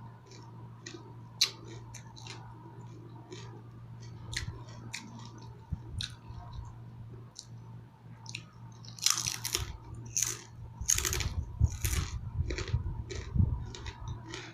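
A person chewing crispy fried dried fish close to the microphone, with many small crunches and wet chewing clicks. The crunching grows louder and denser about nine seconds in.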